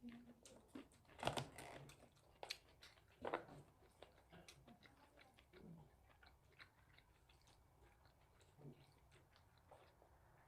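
Close-up chewing and wet mouth sounds of someone eating jjajangmyeon noodles with octopus: soft, scattered clicks and smacks, with two louder ones about a second and three seconds in.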